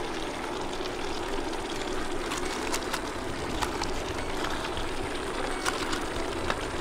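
Steady hiss of the monkfish stew simmering in an open stainless cataplana, with a few light clicks as razor clams are laid in the pan.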